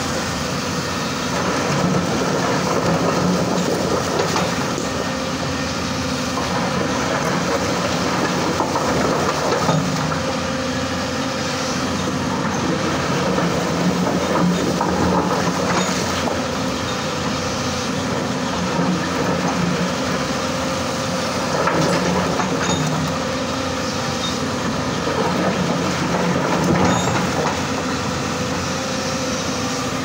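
Hyundai hydraulic excavator's diesel engine and hydraulics running steadily under load, with occasional knocks and clatter as the bucket works through stones.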